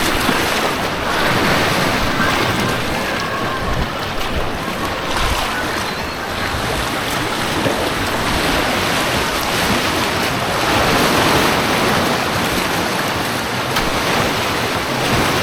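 Steady rush of turbulent white water on an artificial white-water course, heard up close.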